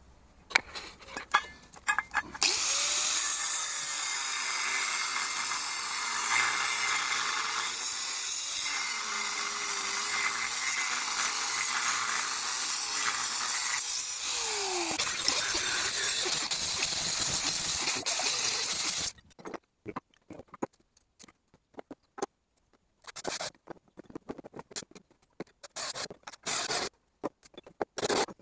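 Angle grinder with a cutting disc cutting through a metal plate: a loud, steady grinding screech that starts a couple of seconds in and cuts off abruptly about two-thirds of the way through. Scattered clicks and knocks come before and after it.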